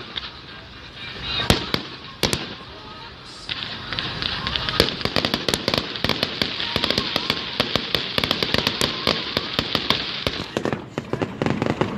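Fireworks going off: a few single loud bangs in the first couple of seconds, then a dense, rapid crackle of many small pops from about three and a half seconds in until near the end.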